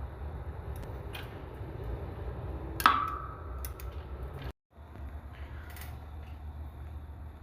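Metal transmission parts being handled: one sharp ringing clink about three seconds in and a few lighter taps and clicks, over a steady low hum. The sound drops out completely for a moment just before the middle.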